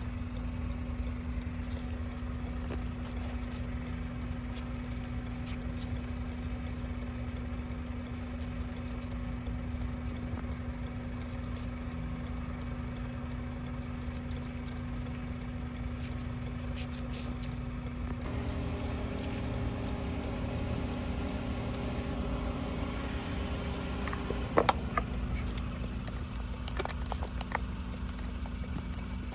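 A steady low mechanical hum, like an idling engine. A second, higher tone joins partway through, and a few sharp clicks come near the end.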